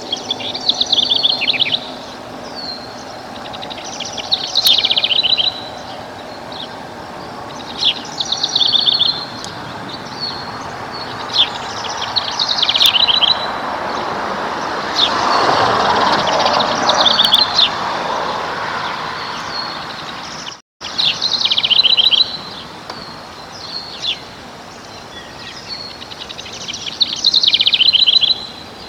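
A songbird sings the same short, high song over and over, about every four seconds. Each song is a quick run of notes that settles onto a steady note. Midway, a low rushing noise swells and fades, and the sound cuts out for an instant about two-thirds of the way through.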